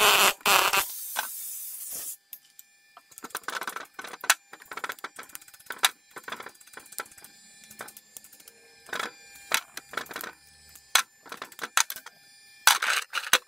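A hand-held air tool runs loudly for about two seconds on a wheel hub, then scattered clicks and clinks as loose steel rollers from the hub's roller bearing drop and are handled in a plastic parts tray.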